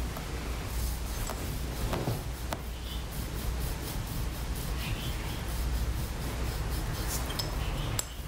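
Stainless-steel massage scraping plate drawn over the skin of the shin and calf in short, repeated scraping strokes, over a steady low hum.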